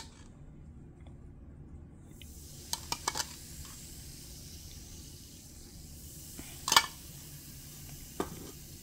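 Baking soda and vinegar reacting in a bottle cap, a soft steady fizzing hiss that sets in about two seconds in as the red foam rises and overflows. A few light clicks and knocks sound over it, the sharpest about three-quarters of the way through.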